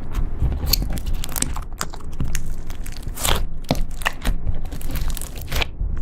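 Slime being squeezed and stretched by hand, giving irregular crackles and sticky pops.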